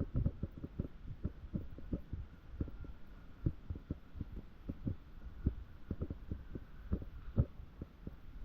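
Footsteps thudding through a handheld camera's microphone while walking, a run of low thuds about two a second.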